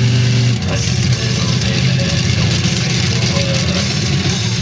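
Monster truck's big engine running with a deep, steady drone as the truck creeps up onto a row of crushed cars, with music playing over it.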